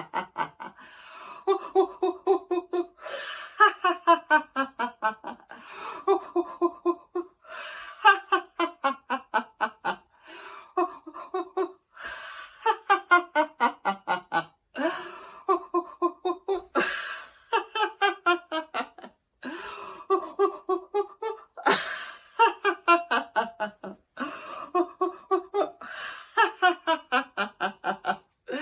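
One person doing laughter-yoga yawning laughter: about ten bouts of rhythmic "ha-ha-ha" laughter, around five pulses a second, each bout falling in pitch, with drawn-out yawns and breaths between the bouts.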